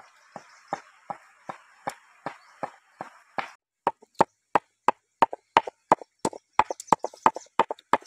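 Pestle pounding red chillies into a paste in a stone mortar: steady, even knocks, about three a second.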